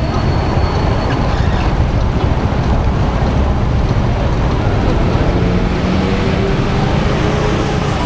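Steady road traffic noise on a busy city street, with a vehicle's engine drone coming up about five seconds in.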